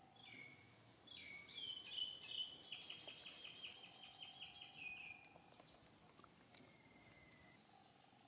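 High-pitched animal calls: a short falling chirp, then a long call of several seconds that breaks into a rapid pulsing trill, and a fainter thin whistle near the end.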